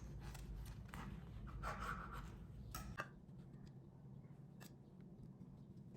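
Knife cutting through a sandwich, a few faint rasping strokes through the bread in the first half, then a few small clicks.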